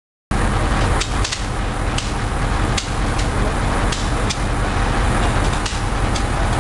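Fans' pyrotechnics going off: sharp cracks at irregular intervals, roughly one or two a second, over a loud, steady rushing noise.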